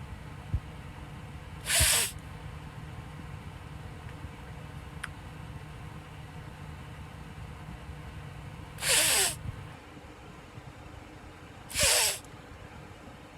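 A man sneezing three times, short sharp bursts through the nose, one about two seconds in and two near the end, set off by cayenne pepper burning in his nostrils and sinuses.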